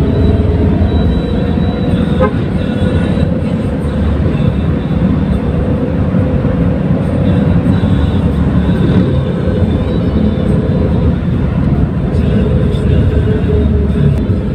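Steady road and engine rumble heard from inside the cabin of a moving car, with a faint steady whine over it.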